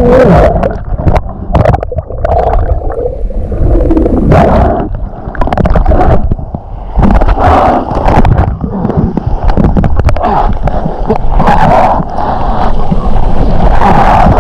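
Water gurgling and sloshing around a snorkeler's camera, with many short splashes and knocks breaking through.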